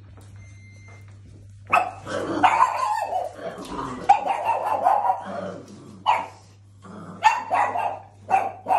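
Dog barking: after a quiet start, a fast string of barks for about three seconds, then a few separate barks near the end.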